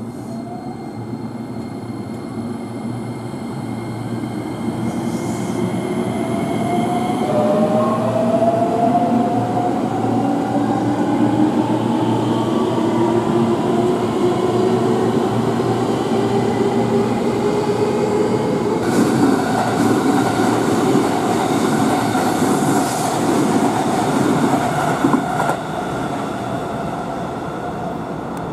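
Electric commuter train pulling out and accelerating. Its traction motors whine, rising steadily in pitch over the rumble of wheels on rail, and the wheels clatter over the rail joints later on.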